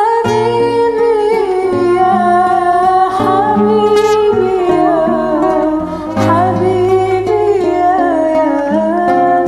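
Two women singing a slow Arabic hymn in duet over an instrumental backing track with guitar-like accompaniment; the voices hold long, wavering notes.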